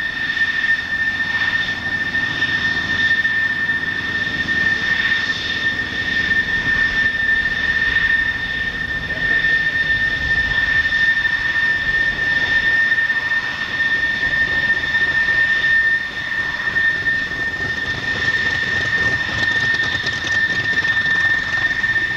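Douglas A-1 Skyraider's Wright R-3350 radial engine running on the ground with its propeller turning. A steady high-pitched whine sits over the engine noise.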